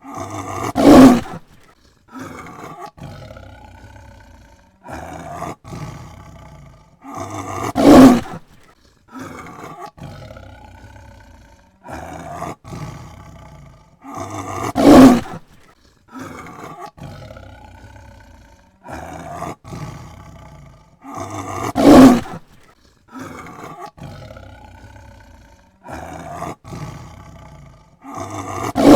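Tiger roaring: five loud roars about seven seconds apart, each followed by quieter, shorter calls. The same sequence repeats each time.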